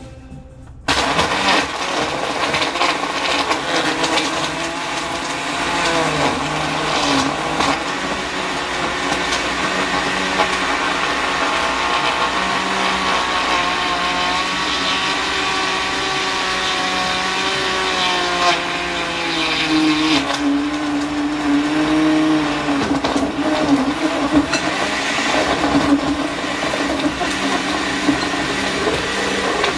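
Countertop blender switched on about a second in and running steadily, blending ice and ice cream into a frozen cocktail. Its motor pitch dips and recovers twice as it works through the ice.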